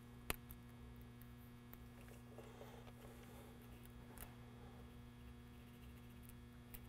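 Near silence with a low, steady electrical mains hum, and one faint click shortly after the start.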